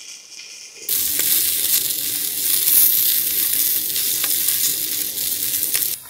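Green peppers frying in a hot pan, sizzling loudly and steadily with small crackles. The sizzle starts suddenly about a second in and stops near the end.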